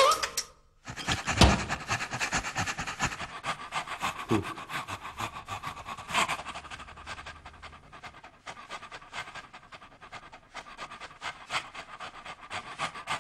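Dog panting rapidly and steadily in quick, even breaths.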